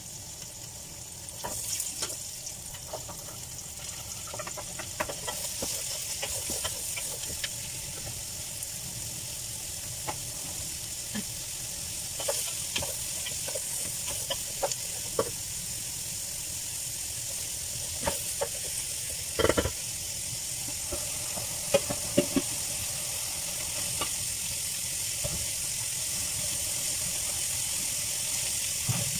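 Sliced onions and carrot strips sizzling in hot oil in a frying pan, with a steady hiss that grows slowly louder. A wooden spoon stirs them, clacking and scraping against the pan now and then, with a few sharper knocks in the second half.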